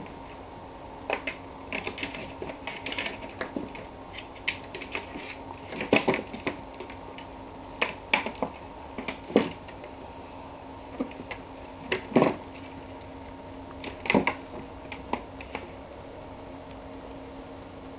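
Irregular clicks, taps and scrabbling of a kitten playing inside a plastic laundry basket: claws skittering on the plastic and a small toy ball knocked against the basket, in uneven clusters, over a faint steady hum.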